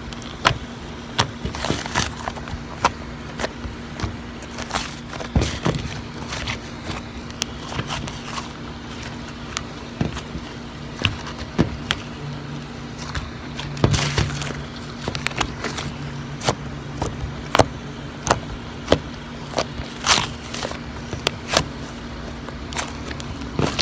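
Butter slime (glue slime kneaded with Model Magic clay) squeezed and poked by hand close to the microphone, making irregular sticky clicks and pops. A steady low hum runs underneath.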